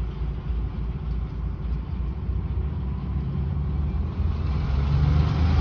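Diesel truck engine running low and steady, heard from inside the cab, getting louder over the last second or so as the truck moves.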